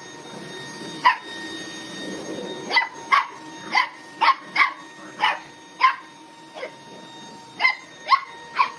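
A dog barking in short, sharp, high-pitched yips, about ten of them at irregular intervals.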